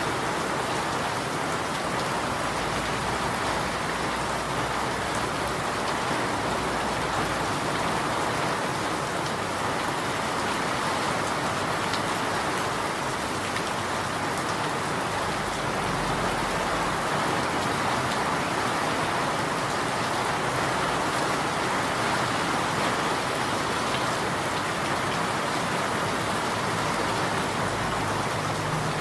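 Steady rain falling and pattering on surfaces, a dense even hiss full of fine drop ticks.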